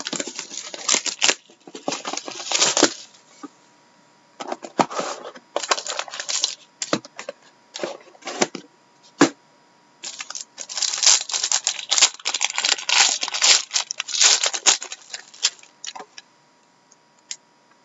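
Trading card pack wrappers being torn open and crinkled by hand, in three bursts, with cards handled in between. The sound stops about a second before the end.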